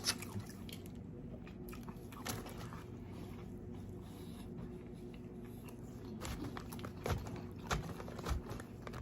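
Close-miked chewing and mouth sounds while eating, with scattered soft clicks and crunches, a few a little louder in the second half.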